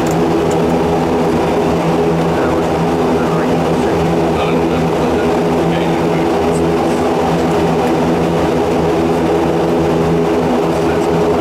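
Aircraft engines running at taxi power, heard from inside the cockpit: a steady drone with several held tones and an even hiss above them.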